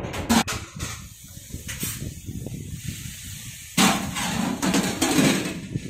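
Steel cookware clattering: pot lids and vessels knocked and handled, with a louder clatter starting a little before four seconds in as a lid is lifted off a big steel pot, over a steady hiss.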